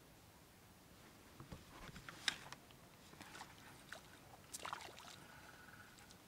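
Faint water splashing and a few sharp clicks and knocks, the strongest about two seconds in, as a hooked crucian carp is brought in from the lake.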